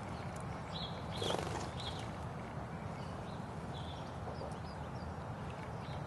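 House sparrows chirping: short, high chirps scattered through, the loudest about a second in, over a steady low background rumble.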